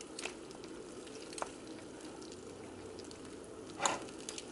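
A fork prodding soft, fully cooked pig feet and tails in a glass baking dish: faint wet squishing with a few light clicks, the loudest one near the end.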